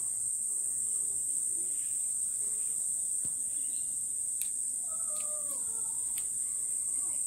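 Steady high-pitched drone of insects in the yard. About five seconds in, a wavering animal call lasts around two seconds.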